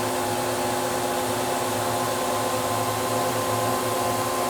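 Steady hum of an idling Haas Super Mini Mill CNC machine with its power on: a constant fan-like hiss with several steady hum tones, unchanging throughout.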